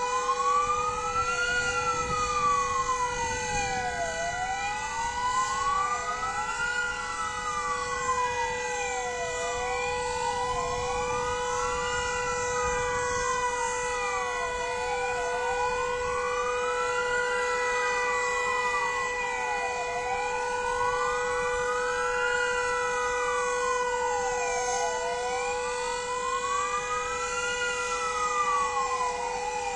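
Sirens of several fire engines wailing together, their rising and falling cycles out of step with one another, over a steady unbroken siren tone. This is the commemorative sounding of sirens at 'W' Hour, not an emergency call-out.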